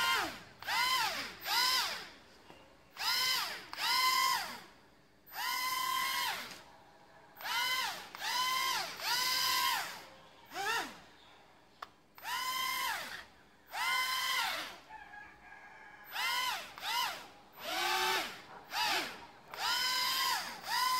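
Mini RC motorbike drone's tiny electric motors and propellers whining up and winding down in about twenty short bursts, each rising quickly in pitch, holding a high whine for half a second to a second, then dropping away.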